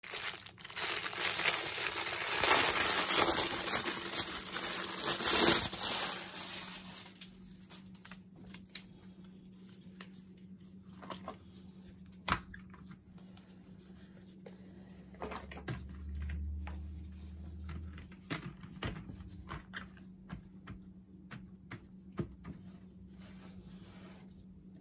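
Plastic packaging crinkling and rustling loudly for about the first seven seconds as a silicone soap mold is unwrapped. After that, quieter handling with scattered light taps and clicks as the mold is set on a baking sheet.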